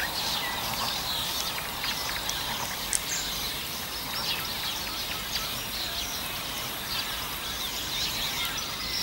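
Several small birds chirping and singing over a steady outdoor hiss, with one sharp click about three seconds in.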